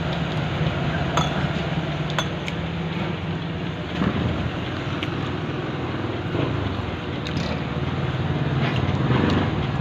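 Steady low hum of a vehicle engine running on the street, with a few sharp clinks of spoons and forks against plates.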